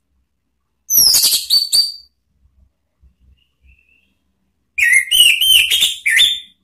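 Orange-headed thrush singing two loud phrases of quick, high whistled notes, one about a second in and the other near the end.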